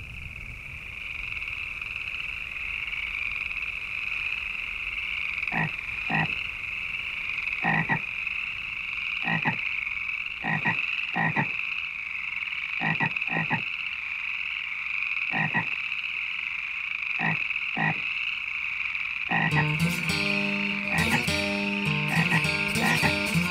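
Frogs croaking in short calls every second or two, often in pairs, over a steady high-pitched trill of a marsh chorus. Plucked guitar music comes in about four seconds before the end.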